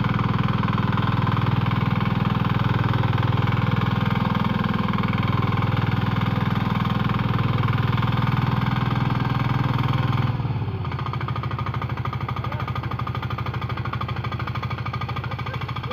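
Engine of a walk-behind power tiller running steadily; about ten seconds in it drops to a lower, quieter idle.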